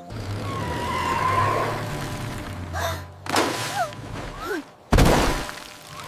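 Cartoon sound effects over background music: a few short sliding tones, then a sudden loud splashing crash about five seconds in that dies away over the next second, as the dump truck bursts through wet mud.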